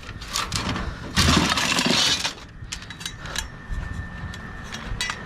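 Scrap being handled and unloaded, clattering and clinking, with one louder crash about a second in and a few sharp knocks after it.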